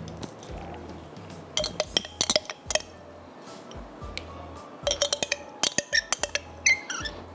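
Quick clusters of glassy clinks and taps as ginger-garlic paste is added from a glass jar into a glass blender jug, over faint background music.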